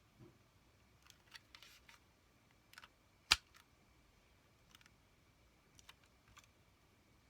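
Small clicks and taps of an airsoft pistol's pins and plastic frame parts being handled and pushed into place, with one sharp click about a third of the way in.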